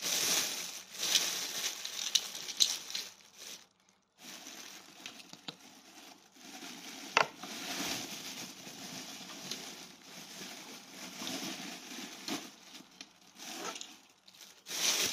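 Crinkling and rustling of plastic packaging being handled, with scattered light clicks, one sharper click about seven seconds in.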